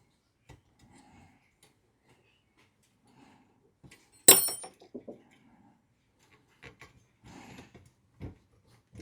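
Small metal tools and bike parts being handled on a workbench: scattered light clicks and taps, with one sharp metallic clink that rings briefly about four seconds in.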